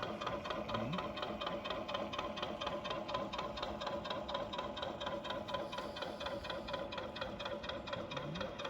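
Sound module of a radio-controlled model trawler playing a diesel engine effect: an even, rapid chugging over a steady hum.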